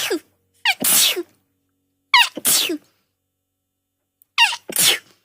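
A young woman sneezing over and over in an allergy fit: four wet sneezes a second or two apart, the first cut in already at the burst. Each starts with a short pitched 'ah' and breaks into a sharp burst of breath.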